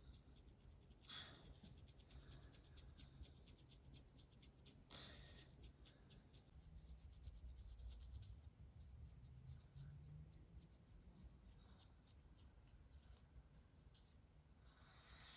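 Faint, rapid scratching of long false fingernails across a child's scalp, many quick strokes raking through dandruff flakes on the dry, unwashed scalp.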